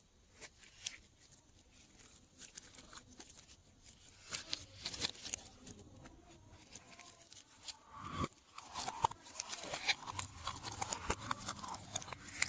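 Close, crackly clicks and scrapes of hands working slime and its add-ins, sparse at first and busier from about four seconds in.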